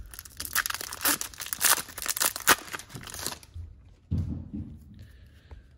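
Foil wrapper of an Upper Deck hockey card pack being torn open and crinkled, dense crackling that stops about three and a half seconds in.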